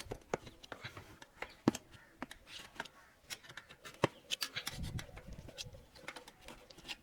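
Screwdriver levering a bicycle tyre off its wheel rim: irregular light clicks and scrapes of metal against the rim and the rubber.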